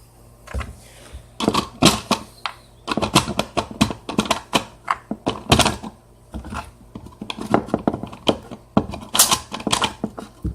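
Rapid, irregular plastic clicks and knocks from foam darts being pushed one after another into a toy dart blaster's plastic magazine.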